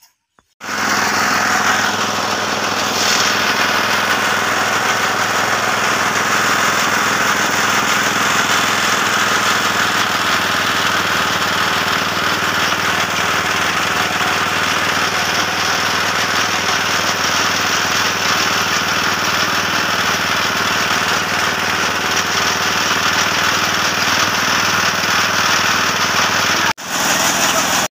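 Powered fodder chaff cutter (toka) running steadily and loudly as green fodder is fed into its flywheel-driven blades. It starts abruptly just after the opening and cuts out briefly near the end.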